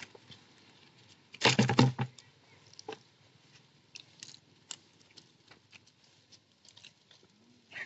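A monkey gives a short, harsh call lasting about half a second, amid scattered small clicks and taps.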